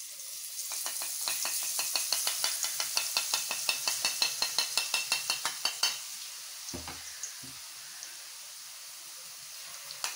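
A steel ladle tapped rapidly against a perforated boondi ladle, about six taps a second, as gram-flour batter drips through into hot oil, which sizzles. The tapping stops about six seconds in, leaving a steady sizzle of frying boondi, with one dull knock shortly after.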